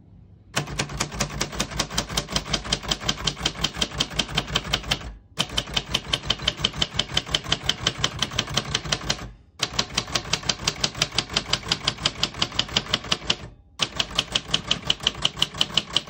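Keys of a 1967 Royal Safari manual portable typewriter striking in fast, even runs of clacks, with three brief pauses. Every key types cleanly, none skipping or sticking.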